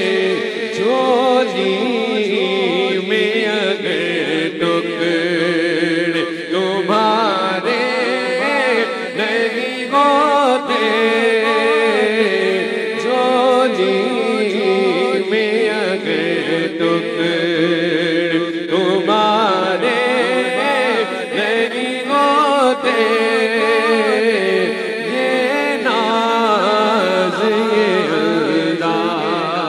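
A man singing a naat, an Urdu devotional poem in praise of the Prophet, solo into a microphone. The melody is slow, ornamented and wavering, with long held notes.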